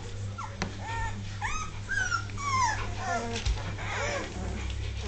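Two-and-a-half-week-old Dogue de Bordeaux puppies whimpering and squeaking: a string of short, high cries that rise and fall in pitch, some overlapping, over a steady low hum.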